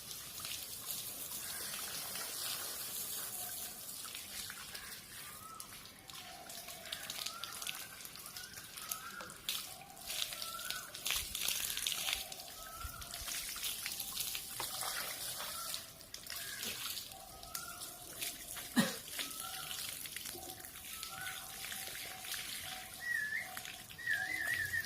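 Water from a tap running and splashing during a dog's bath, with short, high-pitched rising squeaks repeating over it.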